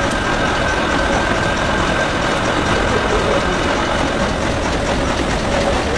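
Steady industrial machine noise with a faint high whine over it, as wood shavings are blown out of a duct into a bin.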